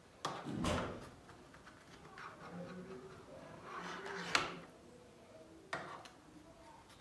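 Knife cutting a cream-topped dessert in a metal baking tray, knocking sharply against the tray a few times: just after the start, at about four seconds and near six seconds.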